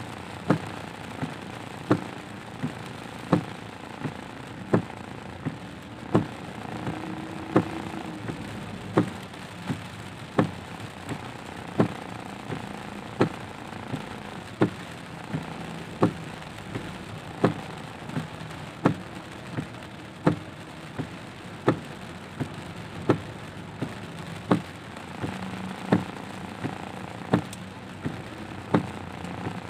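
Windscreen wipers sweeping in heavy rain, knocking about every two-thirds of a second, with louder and softer knocks alternating. Under them runs a steady hiss of rain and tyres on the wet road, heard inside the car.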